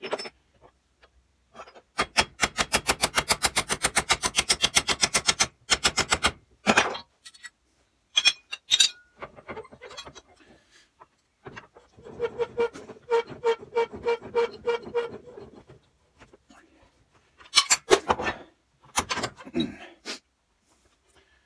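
Rapid runs of light metal-on-metal tapping, about eight to ten strokes a second, on the steel stub axle and kingpin of a Morris Z van held in a bench vise. The second run rings with a clear metallic tone. Single clinks and knocks of the steel parts being handled come in between and near the end.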